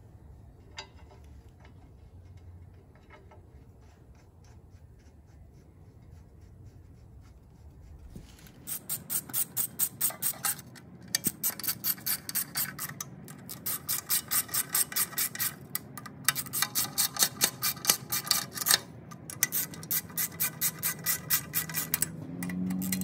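A hand socket ratchet clicking in quick back-and-forth strokes, running 12-point flywheel bolts into the crankshaft through the flexplate. The first several seconds are quiet, then the ratcheting starts with a few short pauses.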